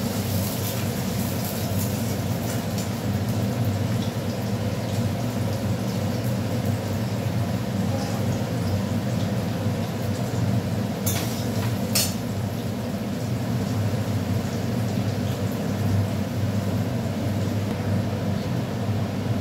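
Chopped onions frying in oil in an aluminium kadai, stirred with a metal spatula, over a steady low rumble. Two sharp metal taps on the pan come about 11 and 12 seconds in.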